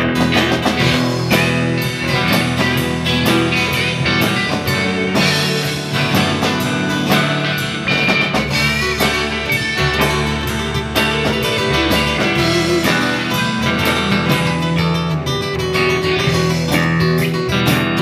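Live rock band playing: electric and acoustic guitars over a drum kit keeping a steady beat.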